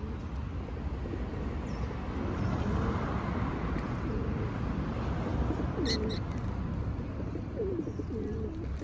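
Birds crowding to be fed give low, wavering calls from about five seconds in, over a steady low background rumble. Two short high chirps come about six seconds in.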